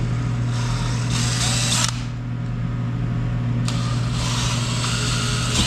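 Cordless drill run in two bursts of a second and a half to two seconds, each ending abruptly, drilling through the plastic fender panel.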